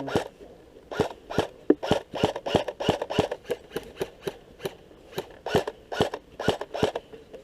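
Airsoft guns firing: a long string of sharp cracks, irregularly spaced at a few per second.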